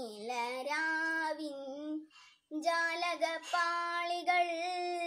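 A young girl singing a Malayalam song unaccompanied, holding long wavering notes, with a short breath pause about two seconds in.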